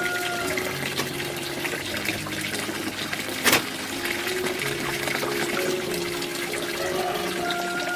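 Water running, under soft background music, with one sharp click about three and a half seconds in.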